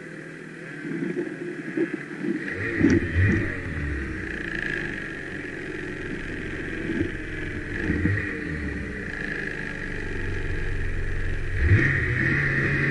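Snowmobile engines running, the revs rising and falling unevenly as the sleds work through deep snow, with a sharp rise in revs near the end.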